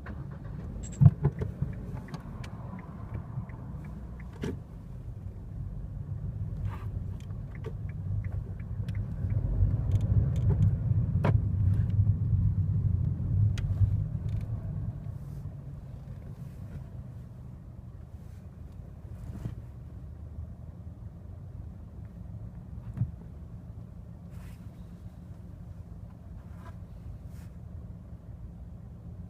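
Inside the cabin of a 2015 Kia Rio on the move: a low rumble of road and engine that grows louder for several seconds about a third of the way in. Scattered short creaks and clicks run through it, the squeak from under the driver's seat.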